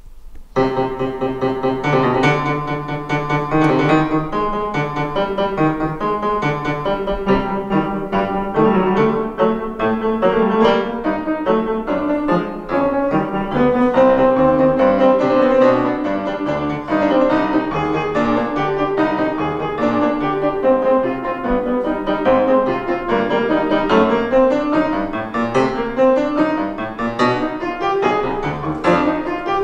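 Concert grand piano played four hands by two pianists, starting a piece about half a second in after a short silence, with dense, fast-moving chords.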